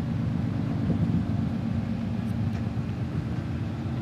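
Steady low engine drone, a deep even hum with a few faint clicks over it.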